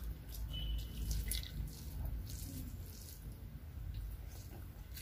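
Wet squishing and smacking of eating by hand: fingers working rice mixed with dal and curry on the plate, then a mouthful being chewed, heard as many short, irregular wet clicks.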